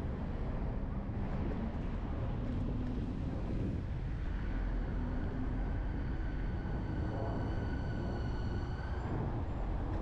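Vehicle driving along a city street: steady low road rumble with wind noise on the microphone. A steady high whine joins about four seconds in and fades out about a second before the end.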